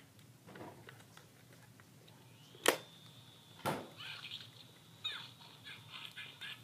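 Two sharp clicks a second apart, then a high steady electronic tone with fast warbling chirps over it, like a battery-powered toy's alarm sound effect.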